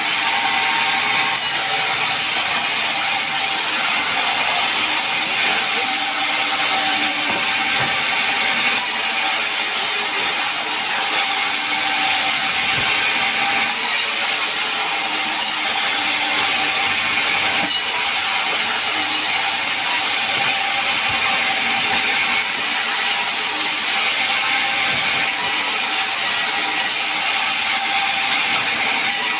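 Sawmill saw running steadily as it cuts through pine timber, a continuous high-pitched, hissing machine noise.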